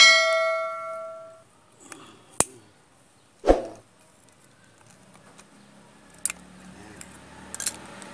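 A ringing metal clink from steel pliers striking the clutch master cylinder of a Honda Civic, dying away over about a second and a half. It is followed by a few light clicks and taps as needle-nose pliers work inside the cylinder's bore to pull out the piston and spring.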